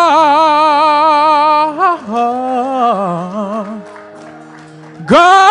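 A man's voice chanting a sermon in a sung, melodic style, holding long notes with wide vibrato. Two sustained phrases, a quieter stretch after about four seconds, then a loud held note again near the end.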